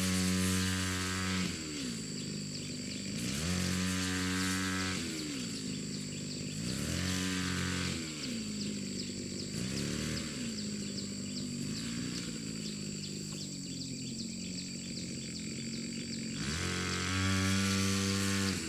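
Small engine on farm machinery, running fast, then dropping in pitch as if under load and climbing back, over and over every few seconds. A steady high whine sits above it.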